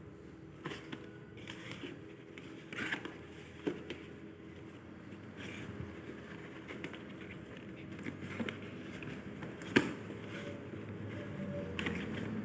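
Hands handling a wristwatch and its packaging: scattered small clicks, taps and rustles, with one sharp click about ten seconds in, over a steady faint hum.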